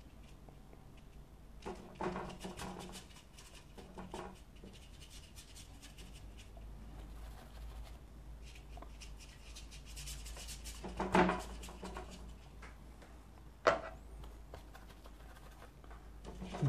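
Quarter-inch flat paintbrush rubbing watercolour paint onto paper in a few short strokes several seconds apart, with one sharp tap about fourteen seconds in.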